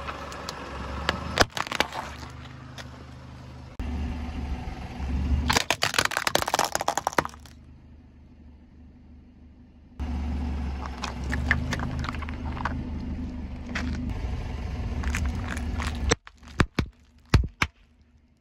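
A car tyre rolling slowly over objects on asphalt and crushing them, one after another. It makes a series of sharp plastic cracks and crunches, one dense run of crackling and a cluster of separate snaps near the end, over the car's steady low engine hum.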